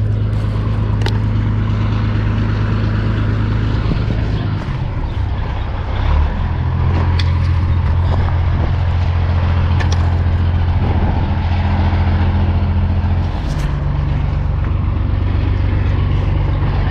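Diesel truck engine idling loudly and steadily while it builds air pressure, its speed stepping up about six seconds in and dropping back near the end, with a few short sharp clicks. The air system was too low on pressure for the trailer to release, which the driver guesses after.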